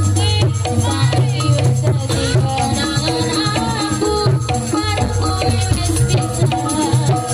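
Javanese jaranan accompaniment music: a gamelan-style ensemble with sustained low gong tones, pitched melodic lines and drumming, over a constant jingling rattle.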